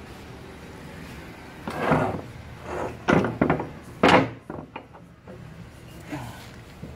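Several metal clunks and scrapes from brake parts and tools being handled, with the loudest about two, three and four seconds in.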